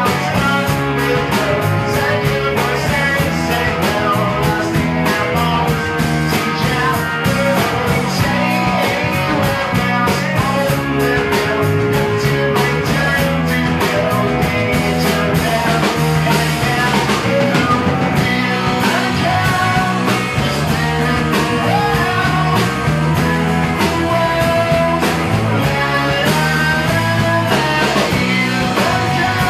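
Live rock band playing, with electric guitars, bass and a drum kit driving a steady beat, and a lead singer at the microphone.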